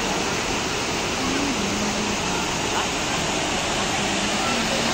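Steady rush of a waterfall pouring over rocks into a stream, with faint voices of people a little way off.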